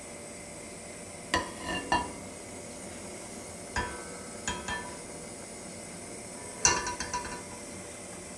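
Metal frying pan clinking and scraping against the gas hob's pan supports as it is tilted and shifted to spread melting butter. The clinks come in three short clusters: about a second and a half in, around four to five seconds, and near seven seconds.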